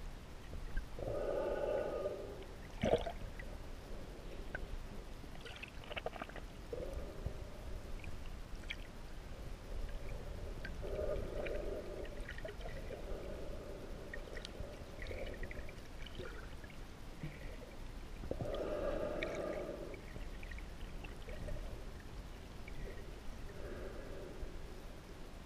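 Muffled underwater sound from a camera held just below the water surface: a low rumble with water sloshing and gurgling in several muffled swells, scattered faint clicks, and a sharp knock about three seconds in.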